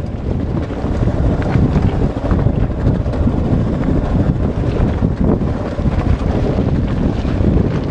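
Wind buffeting the microphone of a helmet-mounted camera on a Kawasaki KLR650 dual-sport motorcycle riding a rocky trail, with the bike's single-cylinder engine running underneath and an occasional clatter of loose rock.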